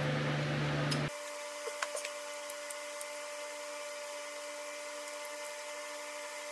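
A steady low hum cuts off about a second in, leaving a faint steady whine under a few light clicks as a steel power steering line is fitted into the dies of a hand-held flaring tool.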